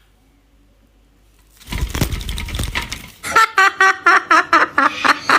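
A burst of noise about a second and a half in, then rapid rhythmic laughter, about three to four laughs a second.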